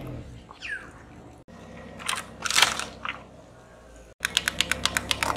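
Brittle objects cracking and crunching under a car tyre: a few loud crunches, then a quick run of crackles, about ten a second, in the last second or so.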